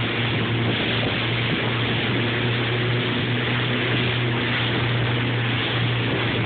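Speedboat's outboard motors running steadily at high speed, a constant low engine drone under a heavy rush of wind and churning water.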